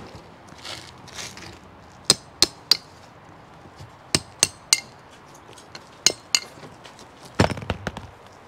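Claw hammer striking a metal tool set in a freshly drilled hole through asphalt shingles, to widen the hole: three groups of sharp ringing taps, two or three blows each about a third of a second apart. A heavier, duller thump comes near the end.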